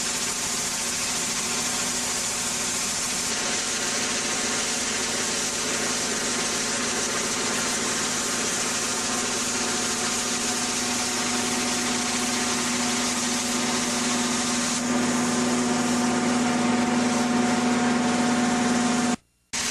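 Ultra-high-pressure water jet (1000–2500 bar) stripping paint and rust from ship steel for painting: a steady loud hiss over the steady hum of the high-pressure pump unit. It gets louder about fifteen seconds in and cuts out briefly just before the end.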